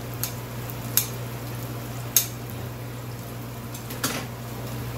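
Onion, garlic and ginger sizzling steadily in rendered beef fat in a frying pan, with a few sharp clicks and taps of utensils at the pan.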